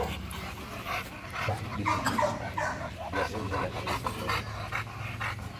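Pit bull panting hard in quick, short breaths, over a steady low hum.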